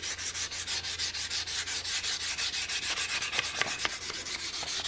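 400-grit sandpaper rubbed by hand along a walnut rifle stock in quick, even back-and-forth strokes, several a second: a light final sanding to clean up raised grain before the oil finish.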